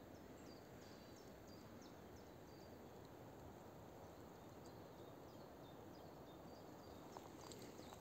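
Near silence: faint forest ambience with distant small birds chirping, high and thin, on and off.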